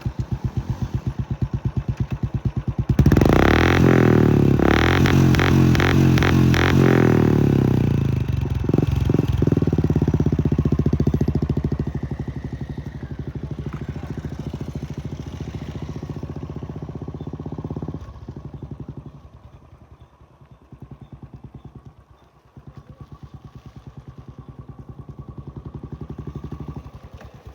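Royal Enfield Bullet's single-cylinder engine idling with an even beat, revved hard from about three to eight seconds in, then settling back to idle.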